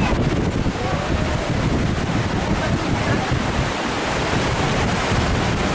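Whitewater river rushing steadily, with wind on the microphone.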